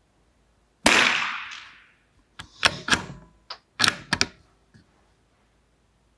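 A single unsuppressed .22 LR rifle shot, with a ringing tail that dies away over about a second, from ammunition loaded below the speed of sound. It is followed by a run of sharp metallic clicks as the bolt is worked to eject the case and chamber the next round.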